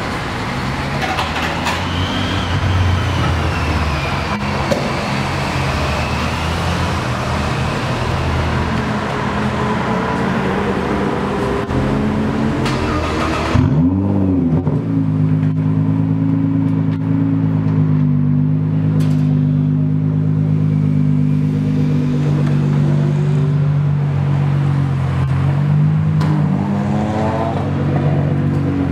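Nissan GT-R's 3.8-litre twin-turbo V6 starting about halfway through with a quick rev flare that rises and falls, then settling into a steady idle; near the end the revs climb as the car pulls away. Before the start there is a steady broad noise with a low engine hum.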